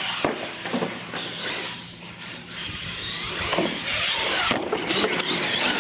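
Electric motors of a radio-controlled monster truck whining as it is driven hard over ramps on a concrete floor, rising and falling with the throttle, with a few sharp knocks as it lands and hits the ramps.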